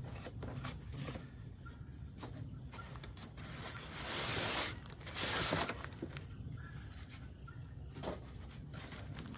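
Packaging rustling and scraping inside a cardboard shipping box as it is unpacked, with two longer rustles about four and five and a half seconds in and a few light knocks.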